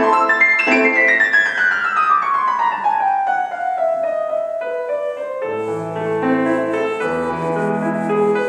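Solo piano playing a classical piece: a fast run that falls in pitch over about three seconds, then slower notes over held bass notes from about five and a half seconds in.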